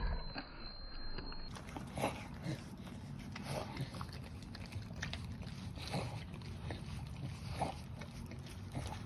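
Staffordshire bull terriers licking raw food off rubber lick mats: irregular wet tongue smacks and slurps, roughly one a second, over a low steady background rumble.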